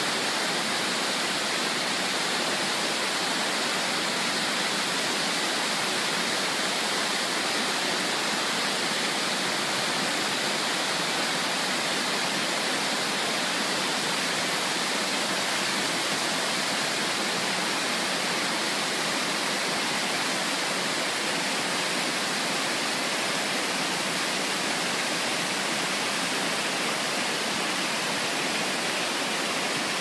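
Waterfall running high after days of heavy downpours, whitewater pouring over rock ledges: a steady, unbroken rushing hiss.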